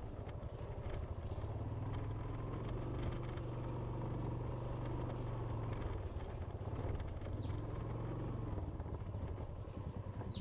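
Small motorbike engine running steadily at low speed while riding along a rough village lane, with a few light knocks from the bumps.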